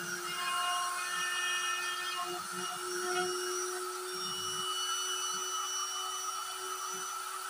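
Homemade CNC router's spindle whining steadily as it carves an MDF panel. Shorter tones come and go at changing pitches as the carving head moves.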